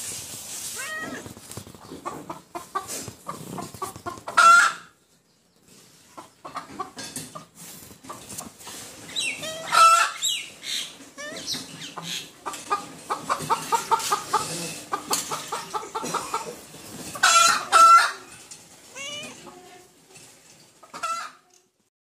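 Hens clucking and calling, with a run of rapid, evenly spaced clucks in the middle and a few louder, higher calls.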